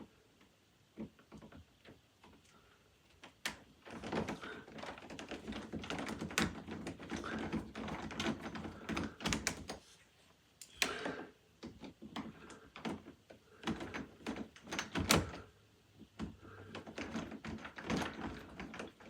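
Irregular clicks, knocks and rattling scrapes of a screwdriver working on an interior door knob's metal hardware and screws.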